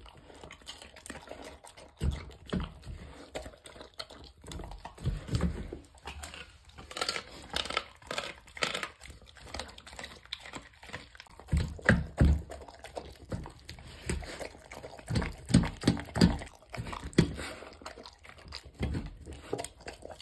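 A dog eating a raw meal from a stainless steel bowl: irregular, clustered chewing and crunching bites.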